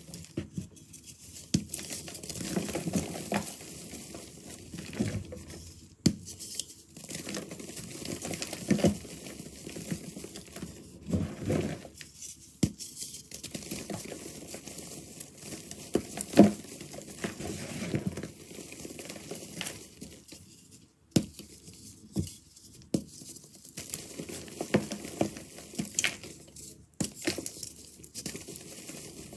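Hands crushing and crumbling crunchy reformed chalk-powder blocks: a dense, dry crackle of crunches and small snaps that goes on without a break, with one louder crunch a little past halfway.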